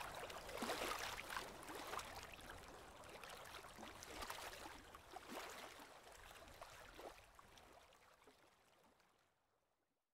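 Small lake waves lapping and splashing on the Lake Erie shore, fading out to silence near the end.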